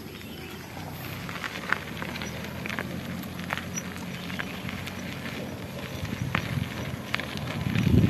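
Bicycle rolling over a dirt track: a steady low rumble of tyres on the ground with scattered short clicks and rattles, swelling near the end.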